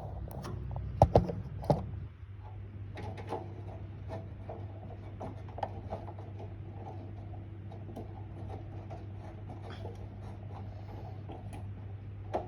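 Handling noise from working on a desktop PC: a few sharp knocks about a second in, then faint scattered clicks and rattles over a steady low hum, as the large multi-wire power supply plug is worked loose from the motherboard.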